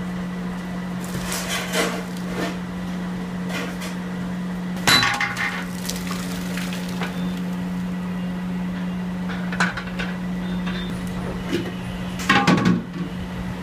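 Aluminium cooking pots clanking and knocking against each other while rice is tipped from one pot into a large vessel: a few sharp clanks, the loudest about five seconds in and near the end, over a steady low hum.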